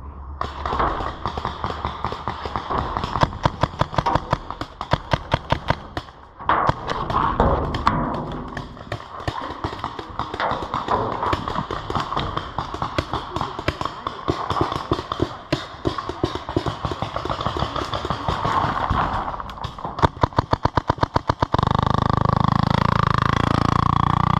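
Paintball markers firing in rapid volleys, many sharp pops a second, with a quick evenly spaced burst about twenty seconds in. A loud steady rushing noise covers the last few seconds.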